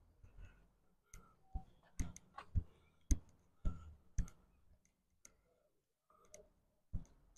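Footsteps on a pavement: sharp heel clicks about twice a second at a walking pace, with a lull of a couple of seconds past the middle.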